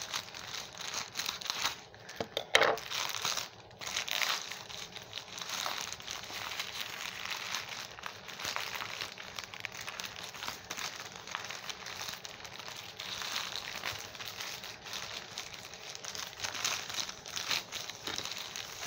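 Plastic shipping bag crinkling and crackling as it is handled and opened by hand, with a sharp, louder crackle about two and a half seconds in.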